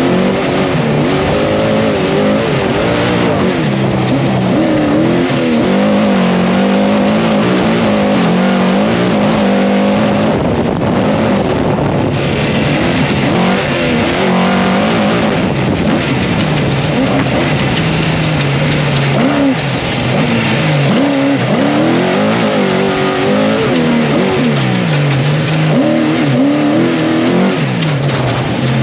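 Trophy truck race engine heard from inside the cockpit at speed, its revs rising and falling again and again with throttle and gear changes, over a steady rush of tyre and road noise.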